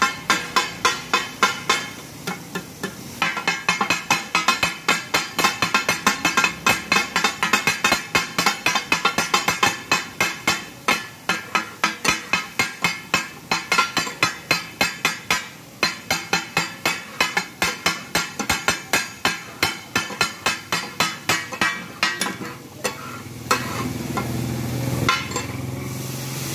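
Metal spatulas striking a large flat steel griddle about three times a second, chopping and tossing mutton offal for takatak, the clatter the dish is named after. Near the end the strikes stop and a steady sizzle rises as liquid poured from a steel cup hits the hot griddle.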